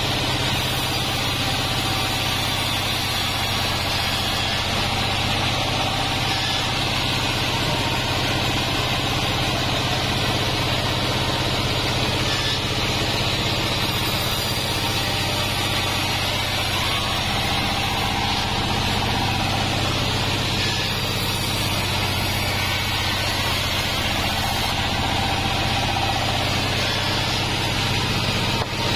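Band sawmill running steadily while its blade rips lengthwise through a waru (sea hibiscus) log: a constant low machine hum under the even noise of the blade cutting.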